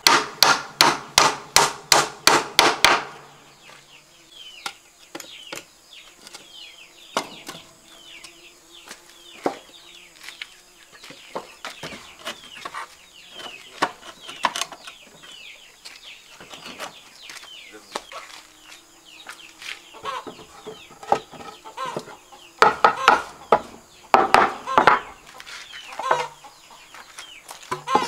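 Steel claw hammer driving a nail into a wooden plank, about three blows a second, stopping about three seconds in. After that, chickens clucking with occasional knocks of wooden boards, louder for a few seconds near the end.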